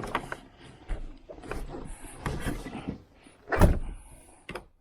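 A door being shut and fastened: a series of knocks and rattles, with one louder bang about three and a half seconds in.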